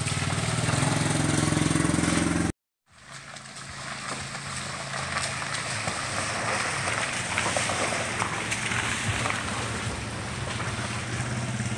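A small motorcycle engine runs close by, its pitch rising slightly, until a sudden cut about two and a half seconds in. After that comes a slow-moving vehicle on a wet, stony, potholed road: a low engine hum under tyre noise, with small crunching clicks from loose gravel.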